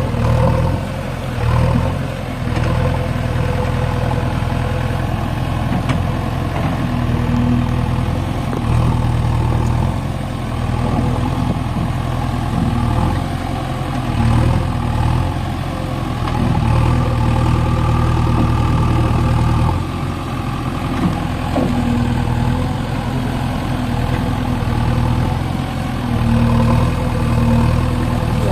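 Diesel engine of a JCB backhoe loader running, its note swelling and easing several times as the revs rise and fall.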